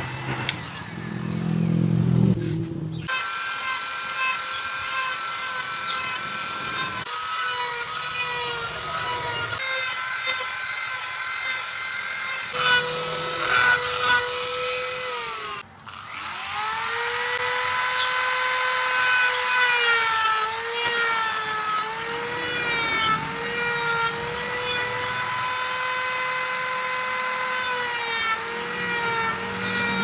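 Handheld rotary tool with a small carving burr whining at high speed as it carves a petung bamboo ring; its pitch sags each time the bit bites into the bamboo and recovers as it eases off. Near the middle the tool briefly cuts out and spins back up. The first few seconds hold a lower machine sound instead.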